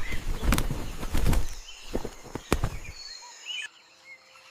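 Birds scuffling: a run of sharp knocks and flutters with short high calls, dying down after about three seconds.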